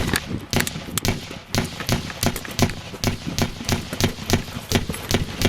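A rapid, irregular string of sharp bangs, several a second and uneven in strength, which the uploader takes for gunshots.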